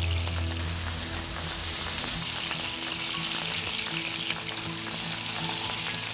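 Hanwoo beef sizzling in hot oil in a frying pan, a steady crackling hiss.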